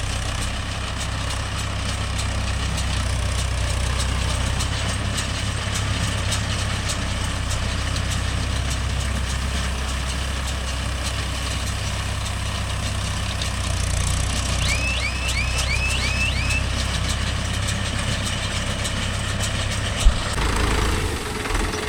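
Mahindra Yuvo Tech Plus 585 tractor engine running steadily while pulling a Bharat baler baling paddy straw. A run of about six quick high chirps sounds about two-thirds of the way through, and there is one sharp knock near the end.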